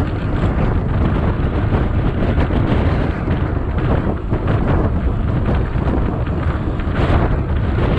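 Wind buffeting the microphone of a camera on a moving mountain bike, a steady low rumble with no break, mixed with the bike's movement on the asphalt road.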